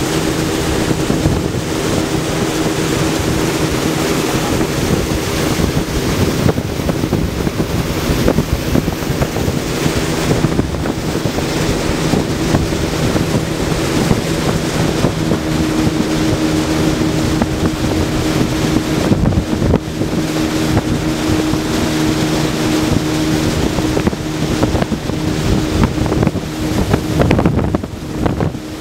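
Motorboat engine running steadily at cruising speed, a constant drone, with wind rushing over the microphone and water noise from the moving hull.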